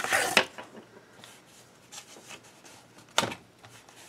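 Cardboard pieces being handled on a work surface: a short rustling scrape at the start, faint rubbing, and one sharp tap about three seconds in.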